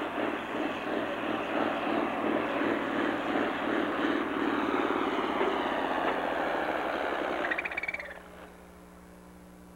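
Farm stock pulling tractor's diesel engine running hard under full load as it drags the weight sled down the track. About eight seconds in the engine noise falls away abruptly as the pull ends, leaving a faint steady hum.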